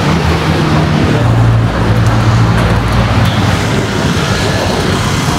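Steady noise of passing road traffic, with a low engine hum that drops out and comes back.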